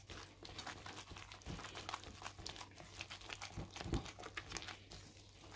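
A gloved hand kneads and squishes wet fish-roe paste in a bowl, mixing it so the salt dissolves. Faint, irregular squelching and crinkling of glove and paste, with a slightly heavier squish about four seconds in.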